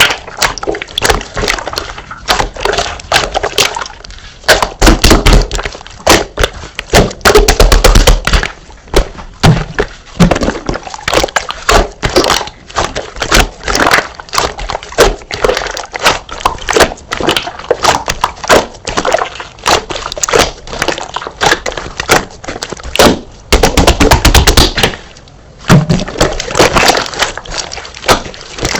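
Slime being squeezed and pressed by hand, making a dense, irregular run of crackling pops and clicks with a few short lulls.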